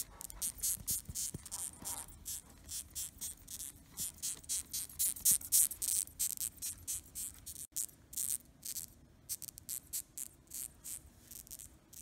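Death's-head hawkmoth squeaking: a rapid run of short, high-pitched squeaks, about three to four a second. This is the moth's alarm squeak when it is disturbed or handled.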